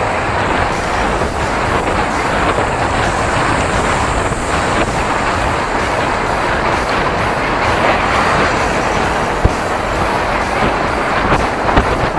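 Steady rush of wind over the microphone and road noise while riding a bicycle, with one sharp click about nine and a half seconds in.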